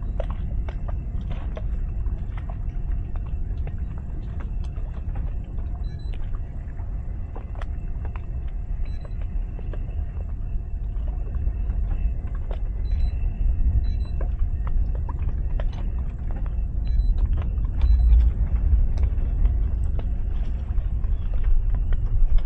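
Twin outboard motors running steadily under tow load, heard as a low rumble with wind buffeting the microphone and scattered light knocks. The rumble grows somewhat louder near the end.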